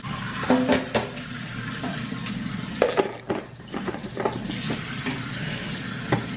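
A kitchen tap running steadily into a sink, with a few sharp knocks and clinks of a container and dishes handled over it.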